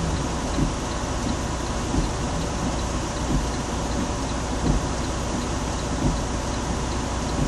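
Heavy truck idling at a standstill, heard from inside the cab: a steady low rumble with irregular low thumps. A faint high tick repeats about three times a second.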